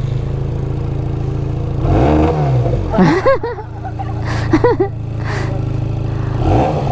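Benelli 302S's 300 cc parallel-twin idling in neutral while the throttle is blipped in several short revs, each rising and falling in pitch, with the busiest burst about three seconds in.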